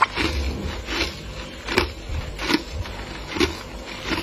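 Crisp crunching of freezer frost, one short crunch roughly every second in a steady rhythm.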